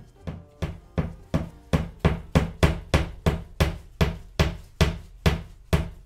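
A claw hammer driving a nail into a wall with quick, even taps, about three a second.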